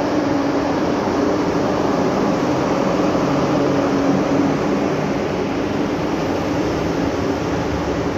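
Former NS 1600/1700-family electric locomotive passing slowly at the head of a container freight train: a steady mechanical hum and rolling rumble. The locomotive's hum fades after about five seconds, leaving the noise of the container wagons rolling by.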